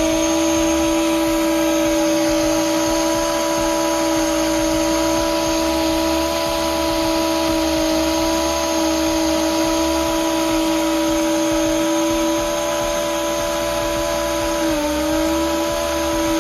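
Vacuum running and driving a 3D-printed air turbine and plastic gear transmission: a loud, steady multi-tone whine at full speed, with a brief dip in pitch near the end.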